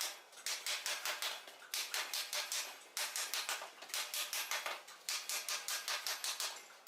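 Quick hammer blows on steel, about six to seven a second, in runs of one to two seconds broken by short pauses.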